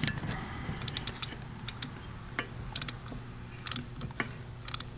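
Scattered light metallic clicks and taps, some in quick little clusters, as a small tool and fingers work the brass floats and float tabs on a Carter AFB-style carburetor air horn while the float level is being set. A faint low hum sits beneath.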